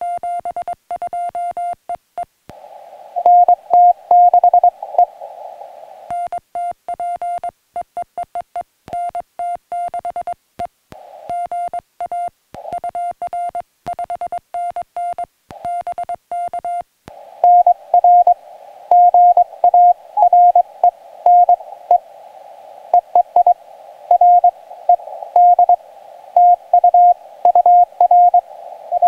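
Morse code (CW) on a portable ham radio: a single mid-pitched tone keyed into dots and dashes. Clean stretches of the operator's own sending on the sidetone alternate with another station's Morse reply, heard through the receiver's narrow-filtered hiss and louder, about two and a half seconds in and again from about seventeen seconds on.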